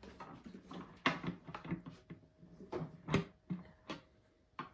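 Handling of plastic animatronic parts: irregular clicks, knocks and rustles as a hand is fitted onto an arm, with the sharpest knocks about a second in, about three seconds in and near the end.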